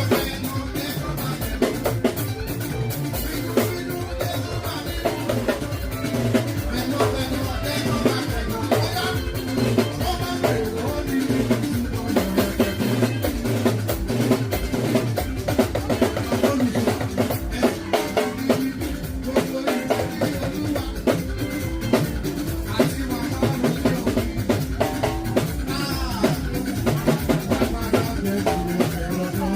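Music driven by a drum kit: snare, rimshot and bass drum strokes in a steady, busy beat over low pitched instrument lines, with no break.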